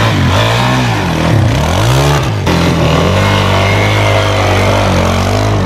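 Suzuki DR-Z single-cylinder four-stroke dirt bike engine revved up and down several times, then held high near the rev limit as the rear wheel spins in mud.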